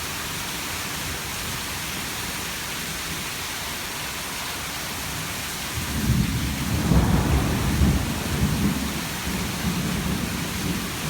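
Heavy rain falling steadily, with a low rumble of thunder rising about six seconds in, loudest a second or two later and then rolling off.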